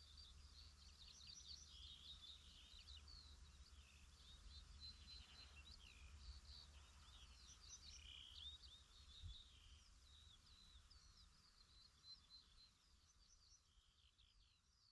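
Several songbirds singing together in a dense chorus of quick high chirps and trills over a faint low rumble, fading out near the end.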